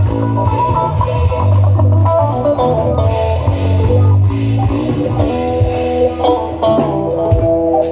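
Guitar and bass guitar playing together: quick runs of guitar notes over a heavy bass line, with the bass thinning out about halfway through.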